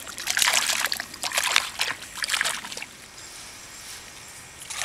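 Water splashing and trickling at a pond's surface in quick irregular bursts for about three seconds, then dying down.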